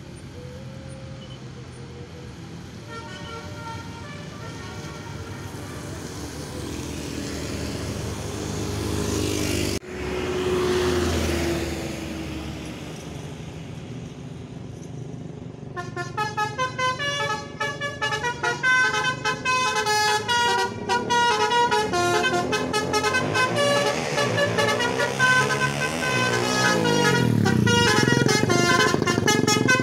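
Bus traffic approaching and passing, then from about 16 seconds in a loud Basuri-style 'telolet' musical bus horn playing quick multi-note tunes, the notes changing several times a second.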